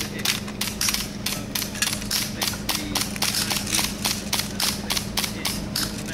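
Metal parts of an MG42/53 machine gun clicking and clacking as it is field-stripped by hand, a quick irregular run of sharp clicks, about four a second.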